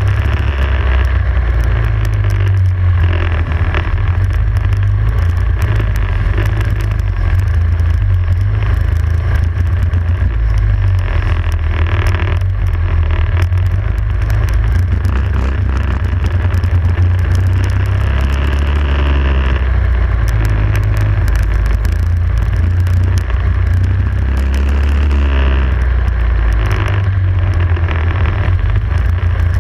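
Prokart's engine running hard at racing speed, heard from a camera mounted on the kart, with the revs dropping and climbing again a couple of times as it goes through corners.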